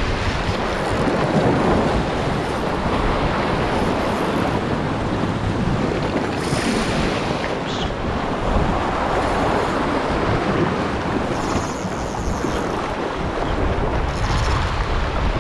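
Sea surf washing against shoreline rocks, a steady rushing noise, with wind buffeting the microphone.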